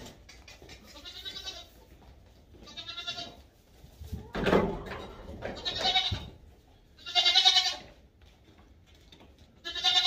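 Goat bleating about five times, high-pitched and wavering, a couple of seconds apart. A low bump or rustle sounds about halfway through.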